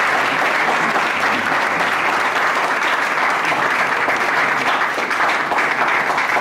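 A small group of people applauding steadily.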